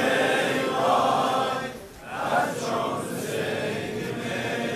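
Large crowd of men chanting an Ashura mourning refrain for Hussein together, many voices drawn out in unison. The chant dips briefly about two seconds in, then carries on.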